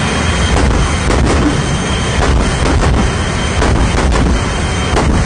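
Jet truck's jet engine running with its afterburner lit, a loud steady rushing blast broken by a few irregular sharp cracks.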